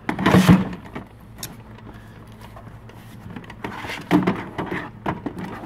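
Plastic tool cases being shifted and lifted in a metal tool chest drawer: a burst of scraping clatter at the start, then more knocks and rattling in the second half.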